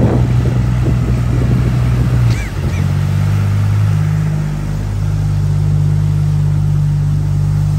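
Steady low engine drone from off-road vehicles, a John Deere tractor and 4x4 SUVs, driving through deep mud. The drone dips briefly about two and a half seconds in and resumes at a slightly different pitch.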